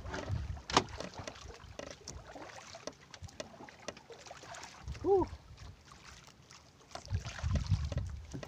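Knocks, clicks and rustles of gear being handled on a fishing kayak, with wind on the microphone that grows stronger near the end. A short rising-and-falling voice sound about five seconds in.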